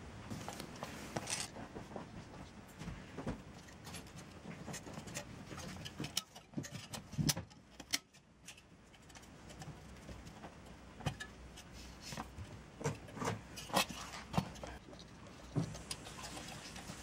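Irregular light clicks, taps and clinks of hard metal and plastic parts being handled while a CPU cooler is fitted, with clusters of sharper clicks about halfway through and again near the end.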